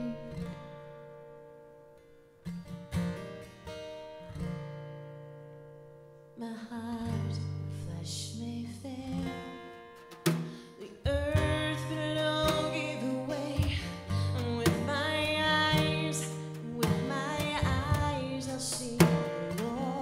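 Live worship song: acoustic guitar strumming with a woman singing. A chord rings out and fades at the start, a few sparse strums follow, then the guitar comes back fuller and the singing enters about halfway through.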